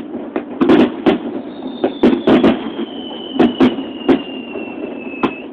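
Fireworks bursting: a rapid, irregular string of sharp bangs, about a dozen, with a thin whistle falling slowly in pitch from about a second and a half in until just before the end.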